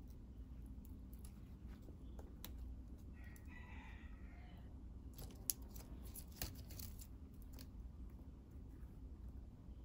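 Faint crinkling and clicking of metallic gold ribbon being handled and wrapped around a thin bamboo stick, densest a little past halfway, with one sharp click. A rooster crows faintly for about a second a third of the way in.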